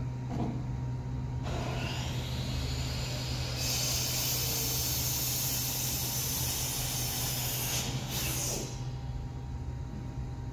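M1A2 SEP V2 Abrams tank running with a steady low hum; from about a second and a half in, a rising whine builds into a loud hiss that holds for about five seconds and then eases off, as the turret is turned around.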